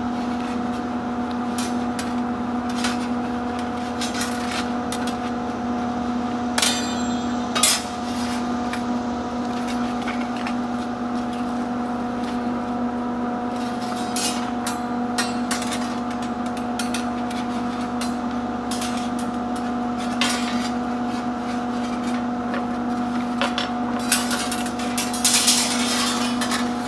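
Irregular metal taps and clanks from working on a bent wire tomato cage, with a denser run of clicks near the end, over a steady electrical hum.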